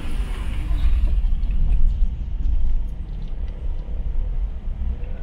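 A car driving: steady low road rumble, with a rushing hiss that fades about a second in.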